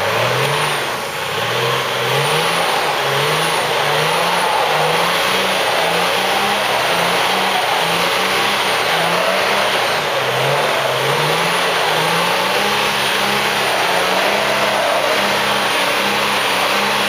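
Toyota Land Cruiser HDJ100's turbodiesel straight-six revving in short rising bursts, about once a second, as the vehicle works at getting out of deep snow, with the tyres churning snow.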